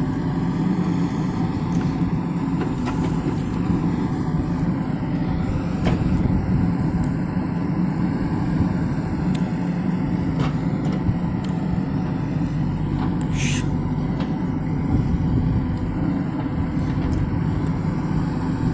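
JCB 3DX backhoe loader's diesel engine running steadily while the backhoe arm works the earth, with a short hiss about 13 seconds in.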